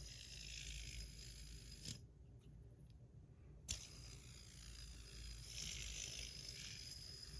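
Metal fidget spinner on a full ceramic bearing whirring with a steady high hiss and a thin high tone. About two seconds in it is stopped with a click, then it is flicked again with a click and whirs on.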